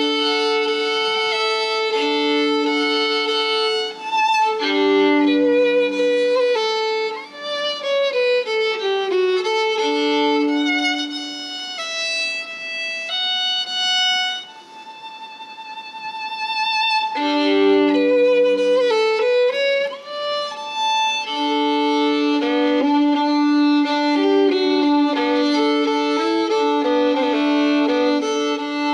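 Solo violin played with the bow: slow, long held notes, often two notes sounding together, with sliding notes in places. Softer, higher playing comes in the middle before the fuller sound returns.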